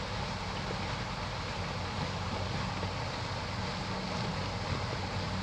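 Water pouring from a PVC pipe onto a homemade water wheel and splashing into a shallow creek: a steady rushing noise, with a faint low hum underneath.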